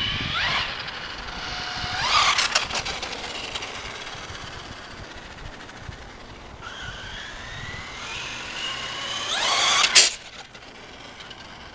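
High-pitched whine of an RC truck's 3000kv brushless electric motor, rising in pitch as it accelerates, with tyres hissing on asphalt. It passes close by twice: about two seconds in, and louder near ten seconds, where the sound cuts off suddenly.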